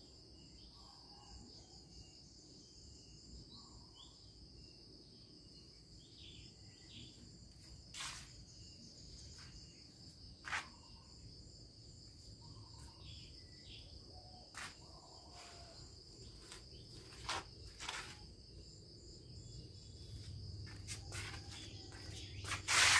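Faint, steady high-pitched chirring of insects, broken by a few sharp clicks.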